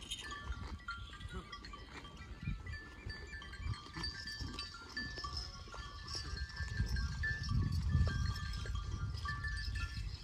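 Dairy farm livestock ambience: many short, high, thin tones over a low rumble that swells about three-quarters of the way through.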